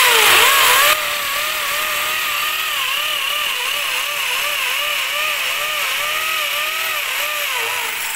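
Hammer drill boring into the wall in hammer mode. The motor comes up to speed at the start and is loudest for the first second, then runs steadily with its pitch wavering as the bit bites. Near the end it lets off and begins to wind down.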